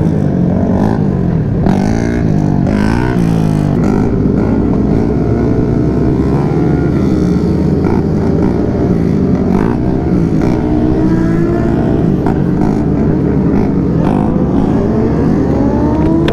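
Sportbike engines running hard in a group of motorcycles and quads, rising and falling in pitch as the bikes rev and shift through the gears. Near the end comes a long rising rev as the bikes accelerate.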